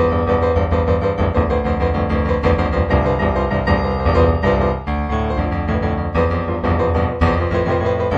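Improvised solo piano music, a continuous flow of notes with sustained chords underneath.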